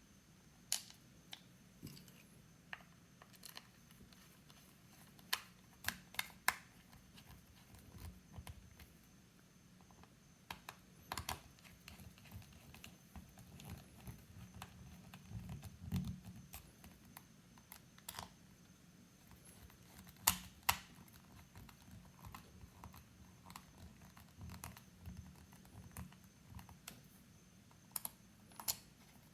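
Screwdriver and small screws clicking and tapping against the plastic battery pack case as the back-cover screws are put back in, with quiet handling noise between irregular, sharp clicks.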